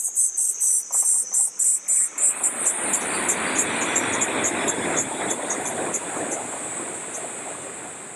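A train passing on the nearby elevated line: a broad rushing noise swells from about two seconds in, is loudest around four seconds, then fades away. Insects chirp throughout in a fast, even pulse of several chirps a second.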